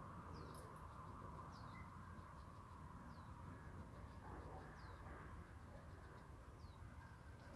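Faint bird calls: about five short, high notes, each falling in pitch, one every second and a half or so, over a quiet steady hiss.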